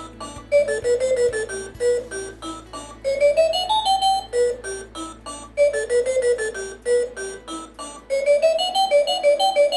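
Background music: a quick keyboard melody of short, piano-like notes running up and down over a low steady bass.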